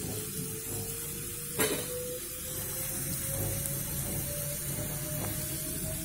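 Sliced potatoes frying in oil in a pan, a steady sizzling hiss, with a single knock about a second and a half in.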